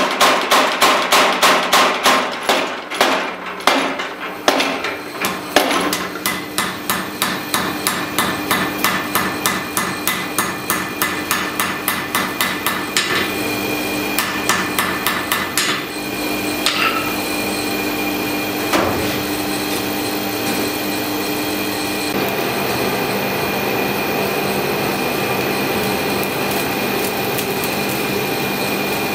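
Power hammer forging a hot damascus steel billet: rapid, regular blows of about four a second that slow a little, then stop about halfway. After that, a steady noise from the lit forge.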